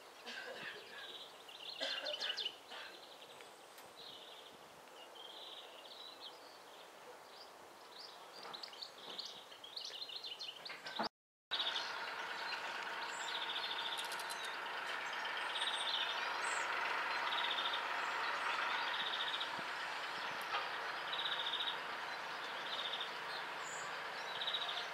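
Small birds chirping and twittering over a background hiss. After a brief dropout about eleven seconds in, the hiss grows louder and a single short call note repeats steadily, roughly once a second.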